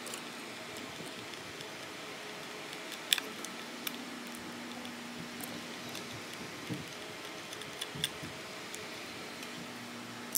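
Light clicks and taps of a small screwdriver and fingers working on the plastic shell of a DJI Mavic Pro drone during disassembly, a handful of sharp clicks with the loudest about three seconds in, over a steady background hum.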